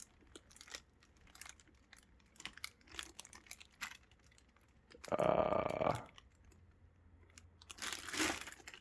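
Packaging being handled during unboxing: scattered faint crinkles and clicks, with one louder tearing sound about five seconds in that lasts about a second, and another rustle near the end.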